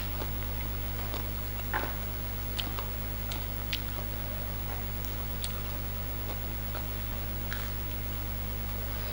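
Eating sounds: scattered soft clicks and smacks of chewing, with fingers picking at rice and papaya salad, over a steady low hum.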